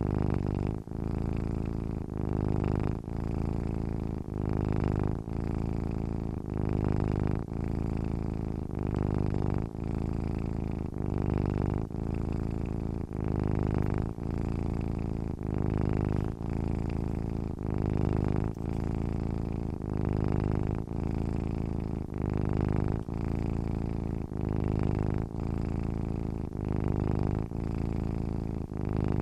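Domestic cat purring steadily while asleep. The low purr swells and dips about once a second as it follows the cat's breathing in and out.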